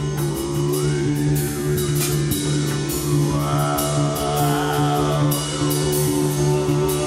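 Acoustic improvised music: a guitarron's plucked bass notes and a drum kit with cymbals keeping time, under a higher melody line that slides up and down in pitch about a second in and again from about three seconds on.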